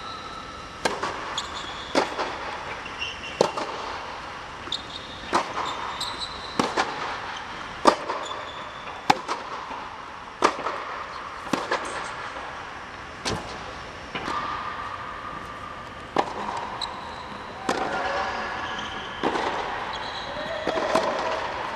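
Tennis balls being struck by rackets and bouncing on an indoor hard court during a practice rally. Sharp pops come roughly every one to one and a half seconds.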